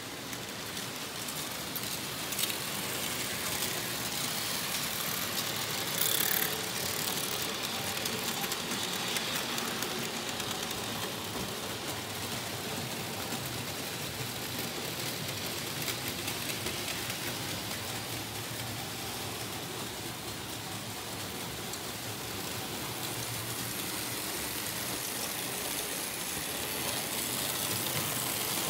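Märklin H0 model trains running on metal M-track: a steady rattle of wheels over the stamped-metal track, with a sharper clack about six seconds in.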